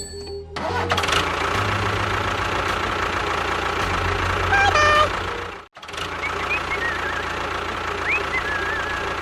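Engine running with a steady low chug. It cuts out abruptly for a moment about six seconds in, then carries on.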